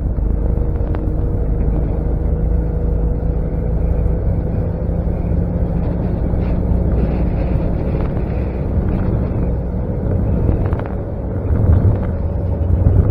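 Motorboat under way at speed: a steady engine drone with water rushing past the hull, swelling louder near the end.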